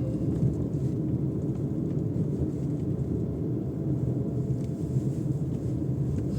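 Steady low rumble of a vehicle in motion, even throughout with no distinct engine note or knocks.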